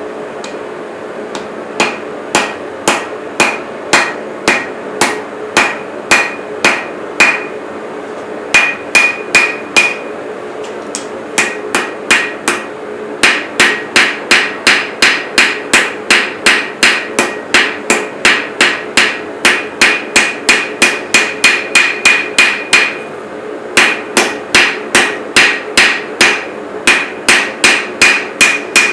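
Hand hammer striking steel on an anvil in forging: a long series of ringing blows, about two a second with short pauses, then a faster, steadier run of about two and a half a second from the middle on. A steady hum sits underneath.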